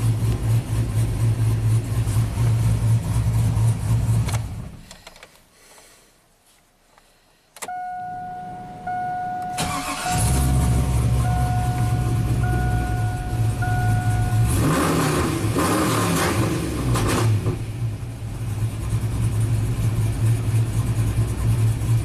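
Swapped 6.0-liter V8 with an aftermarket cam in a GMC Sierra, idling and then shut off about four seconds in; with the key on, a dashboard chime sounds in roughly one-second beeps, the engine cranks and restarts about ten seconds in, revs briefly, and settles back to a steady idle, heard from inside the cab. It is restarting after a crankshaft position variation relearn and now runs without the earlier misfire and stalling.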